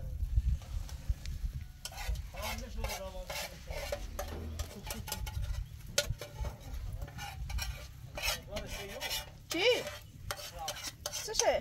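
Stirring and scraping inside a metal cooking pot of broth, with clinks of its metal lid being handled. Two short squeaky gliding tones come near the end.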